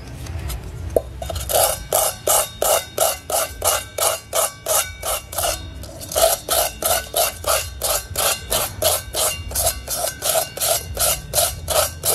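Sandpaper rubbed back and forth by hand over the bottom of a steel pot, a rhythmic scraping at about three strokes a second that starts about a second in. The metal around a hole is being roughened so that a glued patch holds better.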